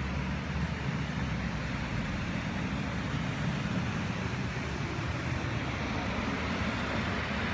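Heavy downpour and rushing floodwater from a sudden cloudburst, a steady noise with a strong low rumble.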